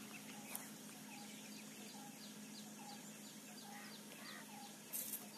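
Birds calling faintly: strings of short, evenly repeated chirps over a steady low hum, with a brief rustle about five seconds in.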